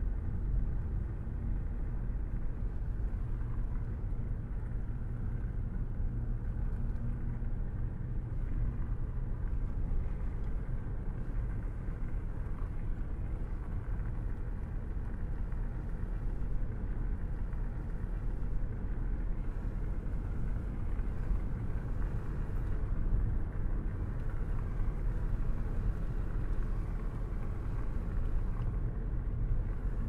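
Small motor-driven log splitter running with a steady low rumble as logs are pushed through its wedge.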